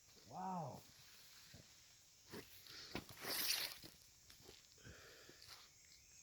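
A few scattered light knocks and footsteps, with a brief rustling scrape about three seconds in, as people move about on and around the cut logs.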